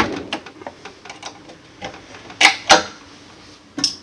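Sharp metal clicks and snaps of a small screwdriver prying the retaining clip on a cupboard door's gas strut and the old strut's end fitting popping off its mounting ball. A click at the start, two loud snaps close together a little past halfway, and another near the end.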